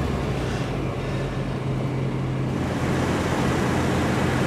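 Car engines idling and creeping along in slow traffic: a steady low engine hum.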